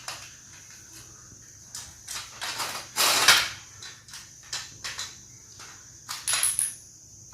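Metal frame of an adjustable washing-machine trolley stand being handled and slid: scattered clicks and knocks, a longer metal scrape about three seconds in, and a cluster of knocks with a brief high squeak near the end.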